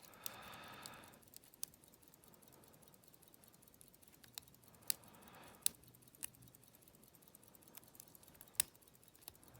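Faint, irregular metallic clicks and light scraping of a lock pick working the pin stack of an old all-brass Yale padlock, single-pin picking under very light tension.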